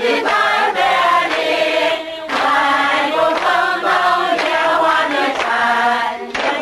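A group of people singing together, several voices in unison, with a brief break about two seconds in.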